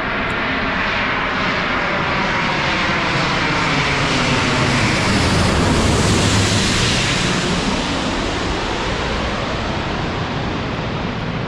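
Airliner on final approach passing low overhead: a broad rush of engine noise that swells to its loudest about six seconds in and then slowly fades, with falling tones early on as it comes in.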